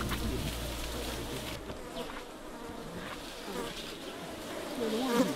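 Flies buzzing close by, the buzz wavering in pitch and growing louder toward the end.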